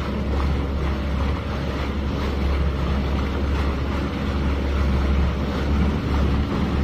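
Motorised outrigger boat's engine running steadily as the boat moves through the water, with wind buffeting the microphone and water rushing and splashing along the hull.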